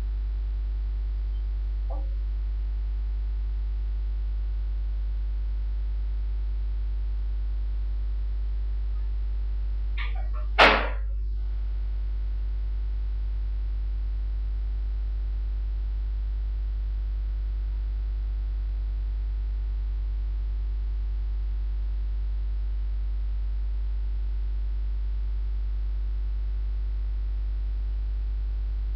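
Steady low electrical mains hum, with one brief sharp sound about ten and a half seconds in.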